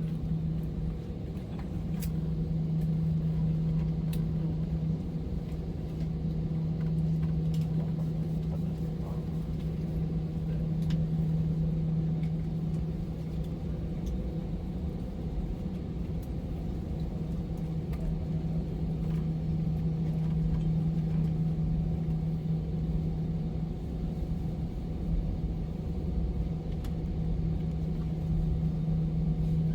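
Steady low hum and rumble inside an Airbus A320 cabin, with one strong low tone held throughout. A few faint clicks come through here and there.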